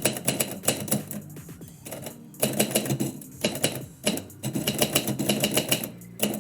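Typewriter keys struck in quick runs of several keystrokes, with short pauses between the runs, over background music.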